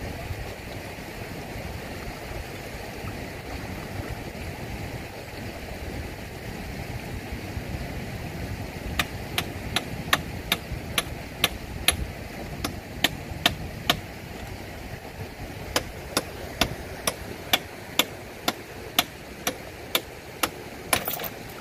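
Kubota M6040SU tractor's diesel engine running steadily. About halfway through, sharp metallic clicks start up at about two a second and run on to near the end, with a short pause in the middle.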